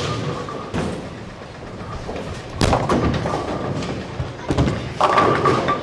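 A bowling shot with a Storm IQ Tour Solid resin-cover ball. There is a loud thud about halfway through as the ball meets the lane, then a clattering crash of pins near the end.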